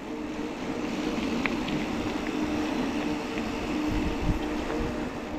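Mountain bike rolling along at speed: steady tyre and wind noise with a constant low hum.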